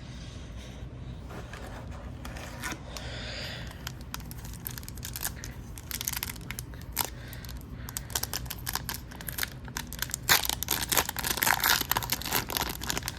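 A hockey card pack wrapper being torn open and crinkled: quick crackles, sparse at first, growing dense and loudest about ten seconds in.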